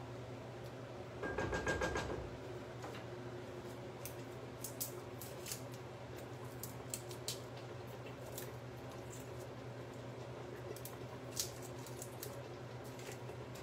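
Light kitchen handling sounds over a steady low hum: a short rattle of rapid clicks about a second in, then scattered light clicks and taps.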